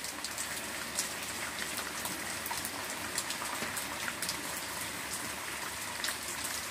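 Ballpoint pen writing on paper: small irregular scratches and ticks as the letters are written, over a steady hiss.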